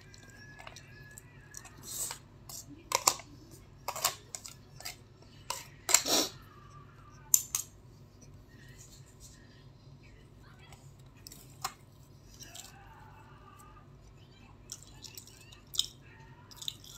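Eating noises: a plastic spoon and fingers clicking and scraping on an aluminium foil takeaway tray, a handful of short sharp clicks spread out with quiet stretches between.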